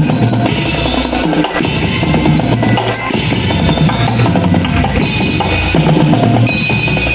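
A marching band playing, driven by its drumline: rapid snare drum strokes and rolls over bass drum beats, with pitched instruments sounding along.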